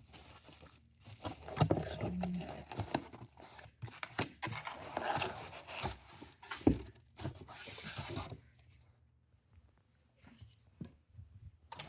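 Packaging being handled and pulled apart during unboxing: irregular tearing, rustling and knocks. The handling stops for about two seconds near the end, then a few more knocks follow.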